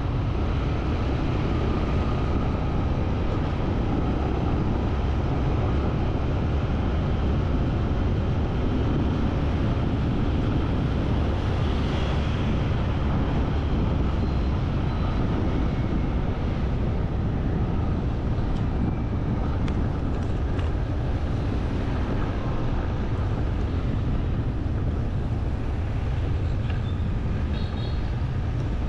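Steady road noise of a vehicle on the move through traffic, with a deep, even rumble throughout.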